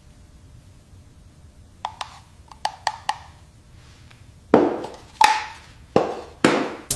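A few light clicks, then four louder knocks of hard objects, each with a short ringing tail.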